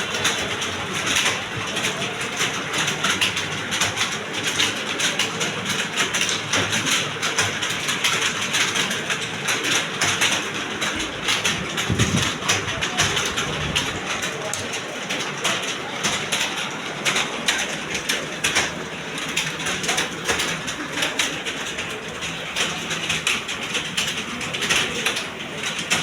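Many computer keyboards typing at once: a dense, steady clatter of overlapping key clicks.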